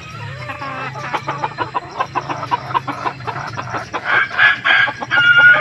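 Birds in a pen clucking and calling in quick short notes over a low steady hum. The calls grow louder from about four seconds in, with a higher, drawn-out call shortly before the end.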